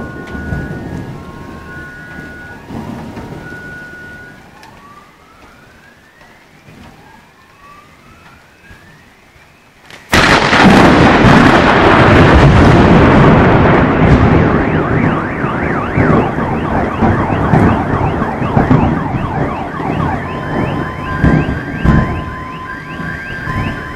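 Thunder rumbling and fading, then a close thunderclap crashes in suddenly about ten seconds in and rolls on loudly for several seconds. Car alarms wail through it in quick repeated rising sweeps and switch to steady beeping near the end.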